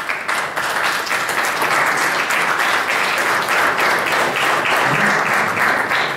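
Audience applauding, a dense, steady clapping that begins to thin out near the end.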